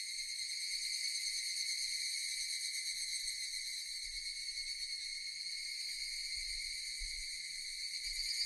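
Japanese cicadas singing: a steady, high-pitched buzzing drone with a fast pulse running through it and no breaks.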